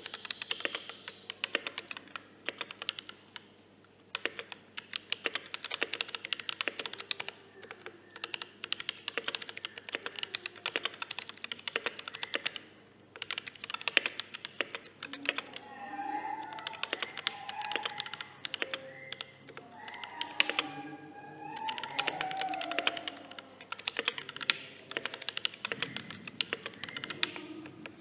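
Typing on a Tofu65 mechanical keyboard with lubed and filmed T1 tactile switches and cherry-profile keycaps: quick runs of keystroke clacks, with brief pauses about 4 and 13 seconds in.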